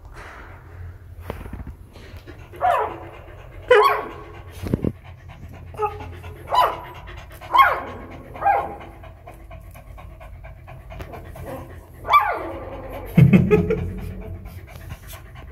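Puppies whimpering: a series of short cries that fall in pitch, with a louder, longer and lower cry near the end, over a dog's panting.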